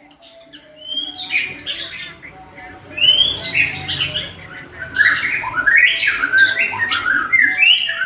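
Male lovebird in breeding condition singing a fast, dry-toned chatter of quick rising and falling chirps. It grows louder about three seconds in and again about five seconds in.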